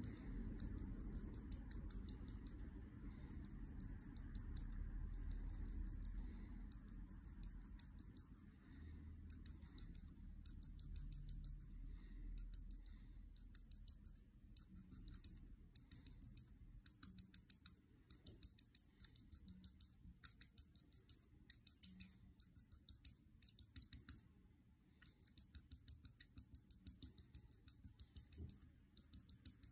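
Copic alcohol-marker nib scratching on paper in quick, short back-and-forth colouring strokes, several a second, in runs broken by brief pauses. A faint low rumble underlies the first half.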